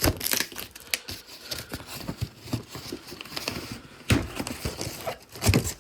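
A package being opened by hand: packing paper crinkling and tearing in irregular rustles, with a few sharper snaps about four seconds in and near the end.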